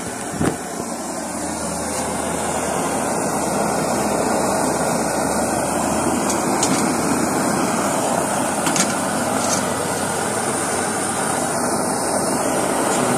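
Pressurized diesel stove burner running with a steady rushing flame noise, which grows slightly louder over the first two seconds. A short knock comes about half a second in.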